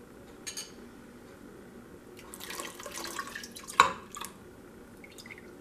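Yogurt starter pouring from a bowl into warm milk in a stainless steel Instant Pot inner pot, splashing for about two seconds in the middle, with one sharp clink near the end of the pour.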